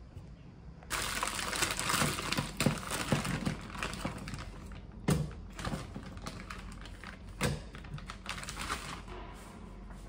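Clear plastic bag crinkling and rustling as it is handled, starting about a second in, with a couple of sharper knocks partway through.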